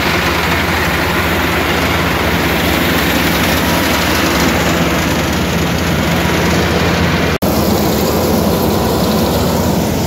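Kubota combine harvester's diesel engine running steadily close by, with a steady low hum and a wide wash of machine noise. The sound cuts out for an instant about seven seconds in.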